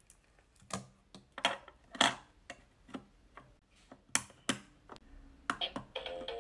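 Plastic clicks and knocks of a 1990s Mattel Barbie toy boombox as a mini picture disc is put in and its lid and buttons are pressed. Near the end the toy starts playing a simple electronic tune.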